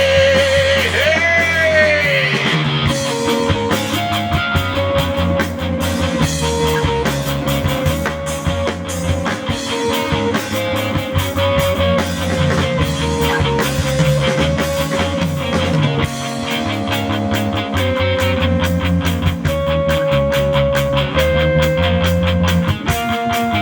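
Rock band playing live, an instrumental passage with guitar over bass and drums. Gliding, bent lead notes come in the first couple of seconds.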